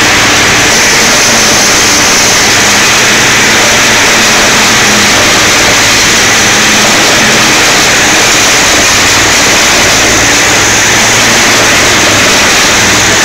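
Elho Rotor Cutter 1500 bale shredder on a tractor's front loader shredding a round bale of silage: a loud, steady, dense noise of the rotor tearing and throwing chopped silage, with the tractor engine running steadily under it.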